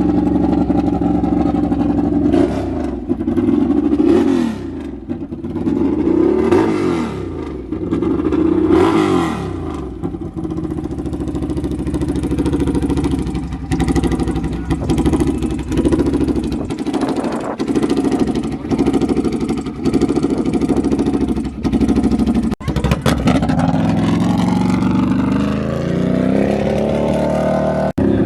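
Quad ATV engines revving, the pitch rising and falling in the first ten seconds, then a run of short rev blips about once a second. Near the end an engine note climbs steadily.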